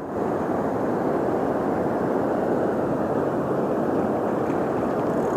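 Steady rushing of a shallow river flowing over rocks and boulders.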